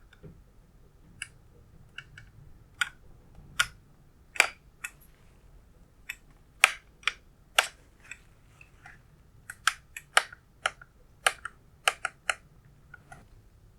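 A series of irregular sharp clicks and taps, about two dozen, uneven in loudness and spacing.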